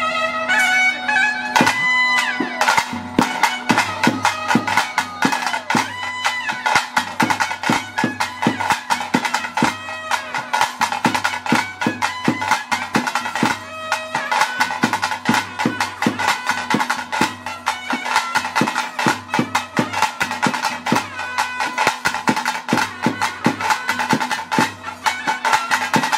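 Traditional Tulu bhuta kola ritual music: fast, dense drumming with a wind instrument playing a melody over a steady drone.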